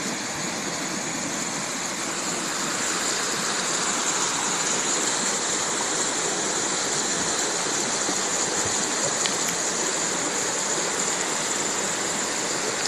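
Mountain river water rushing steadily over stones, a constant even hiss that grows slightly louder about two seconds in.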